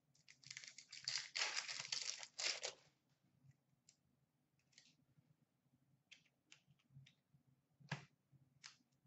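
A hockey card pack wrapper being torn open with a couple of seconds of ripping and crinkling. Then come light flicks and taps of cards being thumbed through in the hand, with a sharper snap about eight seconds in.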